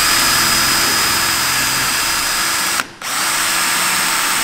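Power drill running steadily as it bores a small hole into a painted metal tube, with a high whine. The trigger is let off for a moment about three seconds in, then the drill starts again.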